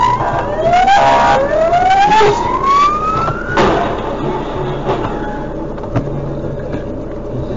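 Police car siren sounding in repeated rising whoops, each sweeping upward over about a second, cut off after about three and a half seconds. It gives way to a steady in-car engine hum with a short knock about six seconds in.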